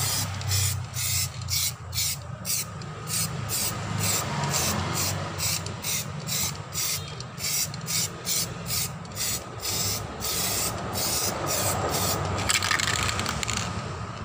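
Samurai aerosol spray can spraying primer onto a car's alloy wheel in short hissing bursts, about two a second, with a low steady hum underneath.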